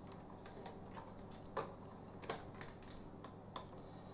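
Light, irregular clicks and taps of small tools and plastic and metal parts being handled while the cooling fan is taken out of an opened laptop, with one sharper click a little past halfway.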